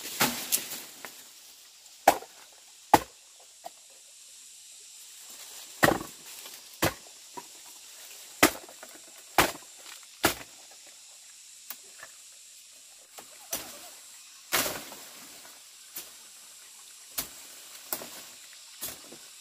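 A blade chopping through plant stems and woody undergrowth: sharp single chops, irregularly spaced, roughly one a second.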